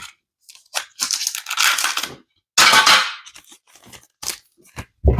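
Foil trading-card pack wrappers crinkling and tearing as they are handled and opened. There are two longer bursts of crinkling, about a second and about three seconds in, and a few short clicks near the end.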